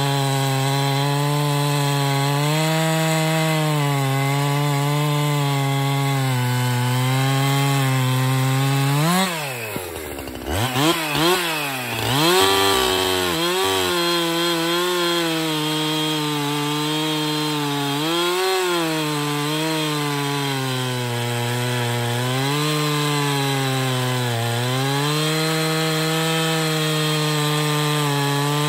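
Husqvarna 365 Special two-stroke chainsaw with a full-skip round-file chain running at full throttle, cutting through a softwood log under load, its pitch wavering as it works. About ten seconds in the engine pitch drops sharply and climbs back up before it settles into the cut again.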